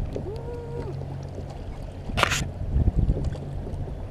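A plastic kayak moving on a river, with a steady low rumble of wind and water on the microphone. A brief tone sounds near the start, a sharp hissing burst comes about two seconds in, and a few low knocks follow.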